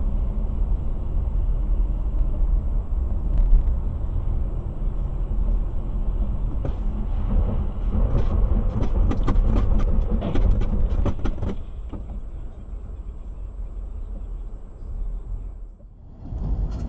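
Road and engine noise of a car driving, heard from inside the cabin as a steady low rumble. From about eight to eleven and a half seconds in there is a run of sharp, irregular clicks and knocks.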